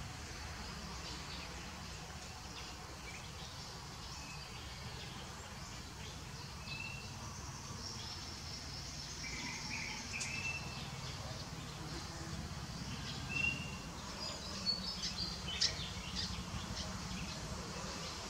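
Outdoor ambience: a steady low rumble under a high insect-like hiss, with a few short high chirps scattered through. A handful of sharp clicks come close together near the end.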